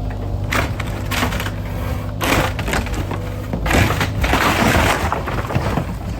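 Wooden cabin framing cracking, splintering and crashing as the structure is torn down, with sharp cracks about every second and a longer crash of breaking wood near the middle, over the steady hum of a running machine engine.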